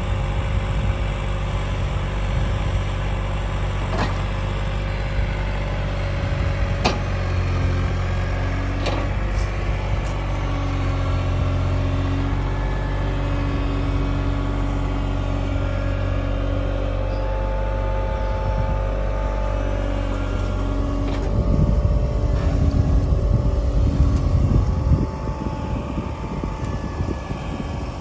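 Cat 303.5 mini excavator's diesel engine running steadily, with whining tones that drift up and down and a few sharp clicks. About three-quarters of the way through it turns louder and rougher for a few seconds, then eases off.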